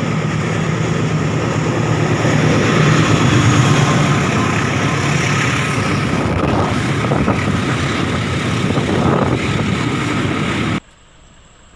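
Loud, steady rushing rumble of a train passing close by, with a few faint clicks from the wheels over the rails in the middle. It cuts off suddenly about eleven seconds in, giving way to a quiet background with a faint high whine.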